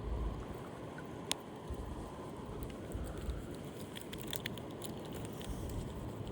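Riverside background noise: a steady, uneven low rumble with no voices, broken by one sharp click about a second in and a short run of small clicks and ticks near four seconds.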